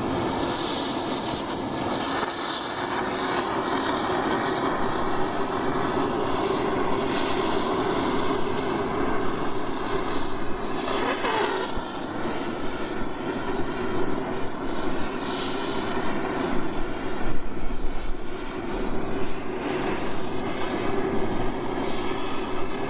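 Oxy-acetylene torch burning with a steady hiss, with metal being banged now and then; the knocks are loudest a little past the middle.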